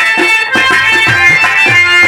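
Nautanki folk music: a harmonium plays sustained reedy melody notes over quick, repeated drum strokes, several of which slide down in pitch.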